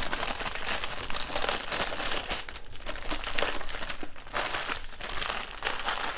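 Clear plastic bags of diamond-painting drills crinkling as they are handled and packed away, with a couple of brief pauses.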